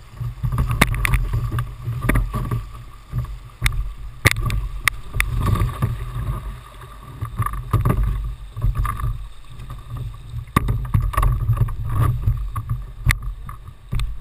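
Whitewater rushing and splashing against a Jackson Coosa kayak running a rapid: a heavy low rumble with frequent sharp splashes and knocks of water and paddle on the boat.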